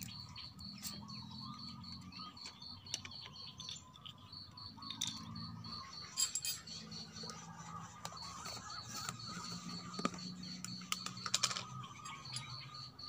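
An insect chirping steadily in a high pitch, about four pulses a second, pausing briefly twice. Over it come scattered clicks and knocks of plastic bottle caps, a plastic funnel and a plastic jar being handled, the sharpest about six seconds in and near the end.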